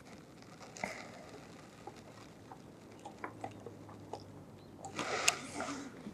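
Faint scattered clicks and light knocks, with a short louder rustle and a sharp click about five seconds in.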